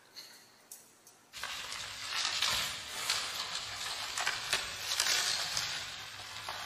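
Plastic bubble wrap crinkling and crackling as a small dog squirms inside a tube of it. It starts suddenly about a second and a half in, with many sharp crackles.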